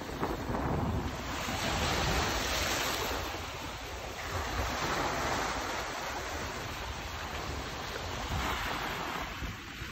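Small waves breaking and washing up a pebbly shore, surging and fading about three times, with wind rumbling on the microphone.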